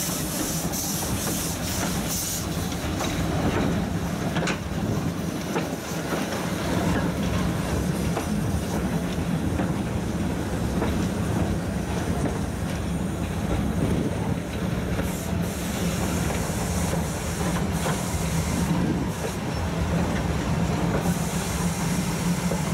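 Metre-gauge steam train on the move, heard from an open wagon: a steady rumble of wheels and running gear on the track, with clickety-clack over rail joints.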